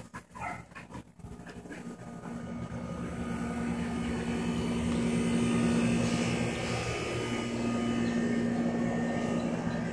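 A dog panting briefly at the start, then a steady mechanical drone with a low hum that grows louder over the next few seconds and holds.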